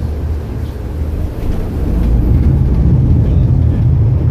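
Marine engines of a sport-fishing yacht rumbling under joystick control during docking, growing louder about two seconds in as the drive takes more power.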